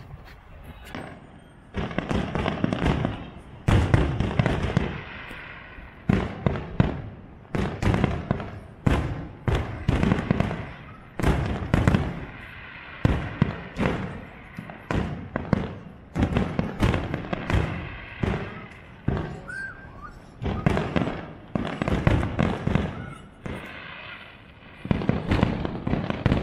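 Aerial fireworks shells bursting in a rapid barrage: sharp bangs in clusters, several a second at the busiest moments, with brief lulls between volleys.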